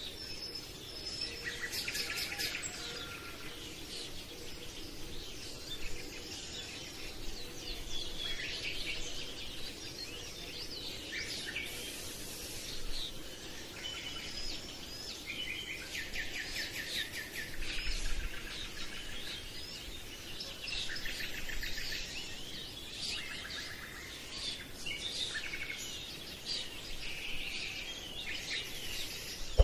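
Birds chirping and singing, with many overlapping short calls and rapid trills, over a steady low hiss.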